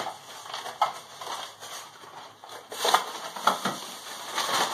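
Plastic bags and packing wrap rustling and crinkling as a model locomotive is unwrapped by hand, in uneven bursts with a few sharper crackles.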